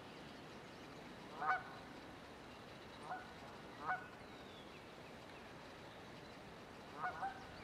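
Short calls from a large bird, heard five times: once about a second and a half in, two more around three and four seconds in, and a quick double call near the end.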